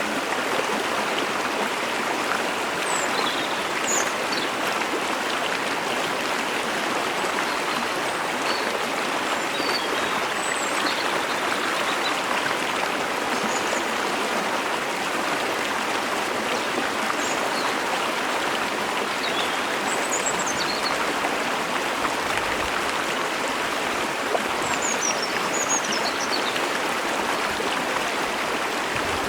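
Mountain stream and waterfall rushing steadily, with short faint high chirps of a bird scattered throughout.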